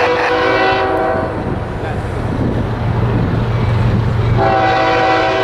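CSX freight train's diesel locomotive blowing its air horn, a chord of several notes, for a grade crossing: one blast ends about a second in, the engine's low rumble carries through the gap, and the horn sounds again about four seconds in.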